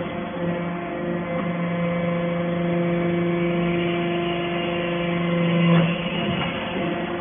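Hydraulic metal-shavings baler running: its power unit gives a steady droning hum, which drops away about six seconds in.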